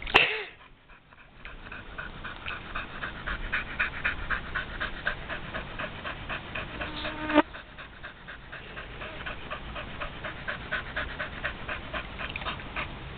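Pit bull panting fast and evenly, tired out and cooling down after long exertion. A brief loud sound comes right at the start, and another short sharp one a little past halfway.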